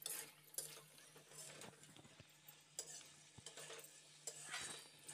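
A spatula stirring and scraping peas and paneer cubes around a metal kadhai in irregular strokes, with a faint sizzle of the frying masala.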